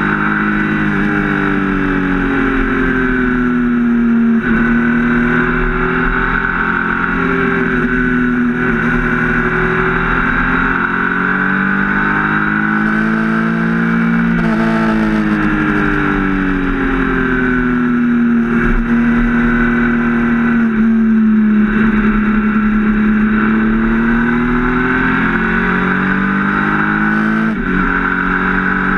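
Triumph Speed Triple RS 1050's inline three-cylinder engine running at road speed, its pitch rising and falling slowly with the throttle: it climbs to its highest about halfway through, sags again, and dips quickly and recovers near the end.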